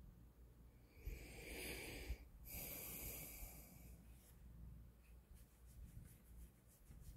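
Soft breathing close to the microphone: two long breaths with a short break between them, followed by a few faint ticks.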